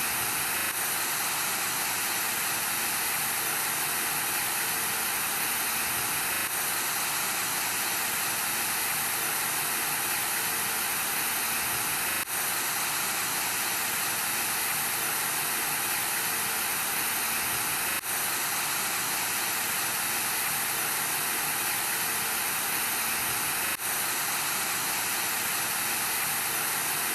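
Television static: the steady hiss of an untuned TV, dense and bright, with faint steady tones beneath it. Three brief clicks with short dips in level break it at about twelve, eighteen and twenty-four seconds in.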